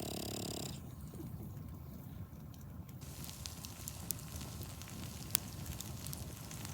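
Campfire crackling: scattered sharp pops over a low, rough rumble.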